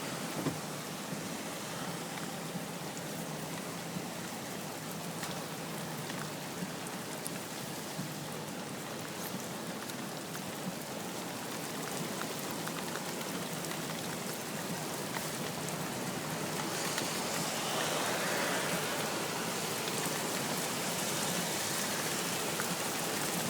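Steady rain falling, a continuous hiss with scattered drop clicks, growing louder about two-thirds of the way through.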